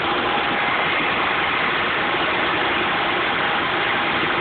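Steady mechanical running noise, an even hiss with a faint steady hum that holds at one level throughout.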